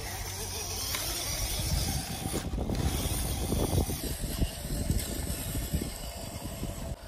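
Scale RC crawler (MN99S Defender 90) driving: its electric motor and gears whir while its tyres crackle over grass and sandy ground, loudest between about two and four seconds in.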